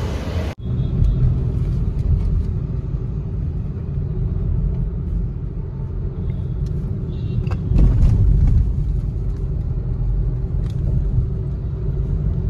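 Steady low rumble of a Honda Amaze petrol car driving on the road. It swells louder for a moment about eight seconds in, with a few light clicks over it.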